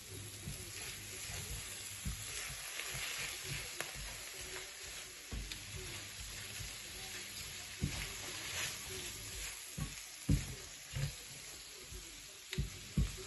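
Egg noodles, chicken and vegetables sizzling in a hot frying pan as they are stirred and broken up, with the utensil knocking against the pan now and then, most often near the end.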